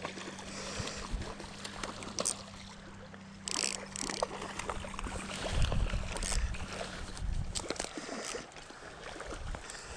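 A steady low engine-like drone that fades out near the end. Over it come a brief hiss about three and a half seconds in and low rumbling bumps of handling and rustle against the chest-mounted microphone.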